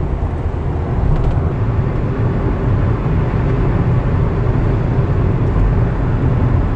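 Steady road and engine rumble heard from inside the cabin of a car cruising on a highway.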